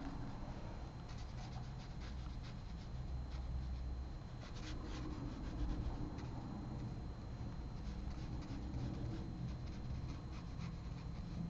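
A watercolor brush rubbing and scratching on paper in short strokes over a steady low hum.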